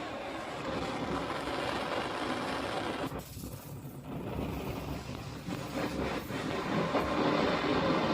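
Homemade alcohol vaporizing burner, coiled from air-conditioner copper tube, burning with a steady rushing flame noise. About three seconds in it drops away for a second or so, then builds back louder. The flame is unsteady, surging and fading, which the maker puts down to too few turns of copper coil to vaporize the alcohol fully.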